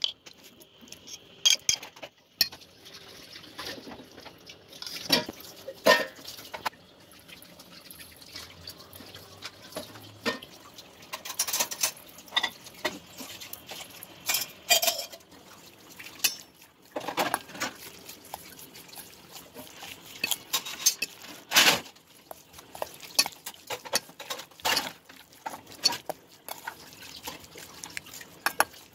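Metal spoon clinking and scraping against a stainless steel mixing bowl, with wet sounds of raw chicken pieces being dropped in and stirred with spices. The clinks come irregularly throughout.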